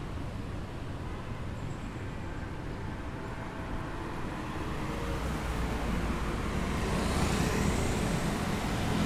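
Street traffic: a steady rumble of cars and motorbikes, with a vehicle approaching and growing louder in the second half.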